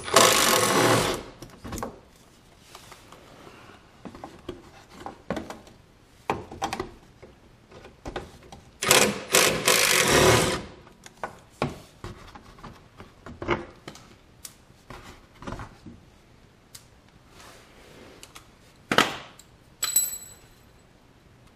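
Cordless drill on a long socket extension spinning out 10 mm bolts from the underbody splash shield, in two runs: one about a second long at the start and one about a second and a half long about nine seconds in. Light clicks and rattles of the socket and loosened parts come in between.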